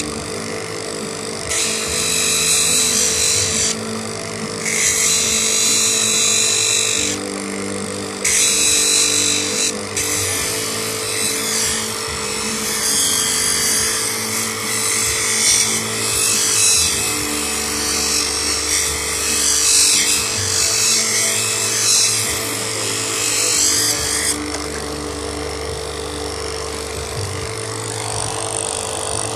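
Small motor-driven lapidary wheel running with a steady hum, while a moss agate cabochon is pressed against it: a hissing grind that starts and stops every few seconds as the stone is pressed on and lifted. About four-fifths of the way through, the grinding stops and the motor runs on alone.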